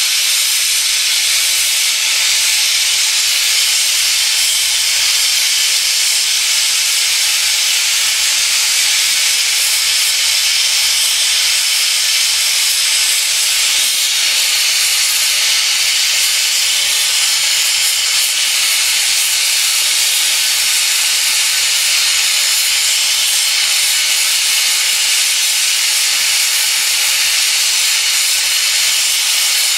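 Gas torch flame hissing steadily while it heats a flat steel bar held in a vise.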